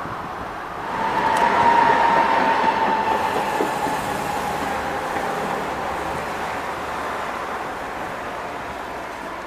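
Two-car Tatra T3 tram set passing close by on street track: its running noise swells about a second in, with a steady high whine that sinks slightly in pitch as it draws away and slowly fades.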